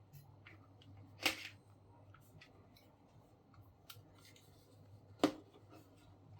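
Small clicks and handling noises of tools and plastic parts being moved about, with two sharper clicks about a second in and near the end, over a faint low hum.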